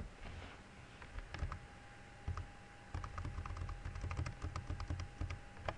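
Computer keyboard keys clicking as the Alt-Tab window switcher is cycled: a run of short, light taps starting about a second and a half in.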